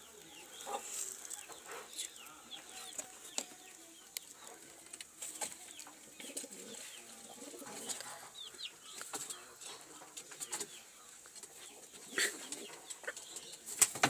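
Pigeon squabs in the nest giving thin, high, falling squeaks over and over, with rustling in the straw and scattered sharp clicks.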